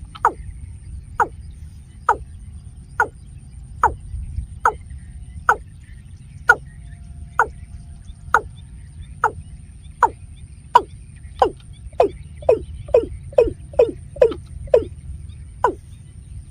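Watercock calling: a long series of short hollow notes, each falling in pitch, about one a second, quickening to a rapid run about twelve seconds in before slowing again.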